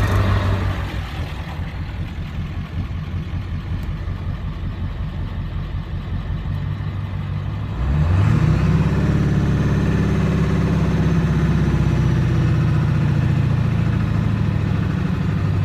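Ford 7.3 L Power Stroke turbo-diesel V8 on oversized 238/100 injectors, idling roughly on its daily tune. About halfway through it is brought up to a faster, louder steady speed and held there, dropping back at the very end.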